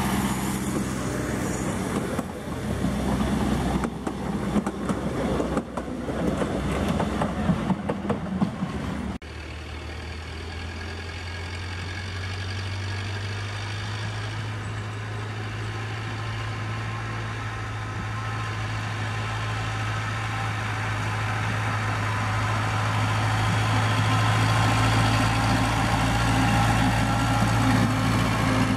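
Narrow-gauge diesel train rolling past, its engine running under a clatter of knocks from the cars. After a cut about nine seconds in, a small narrow-gauge diesel locomotive approaches along the track, its engine hum growing steadily louder as it draws near.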